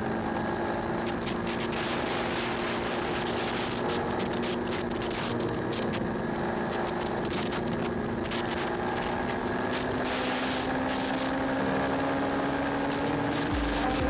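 Motorcycle engine running at steady road speed, its pitch creeping up slowly near the end as it speeds up, with wind rushing and buffeting over the camera's microphone.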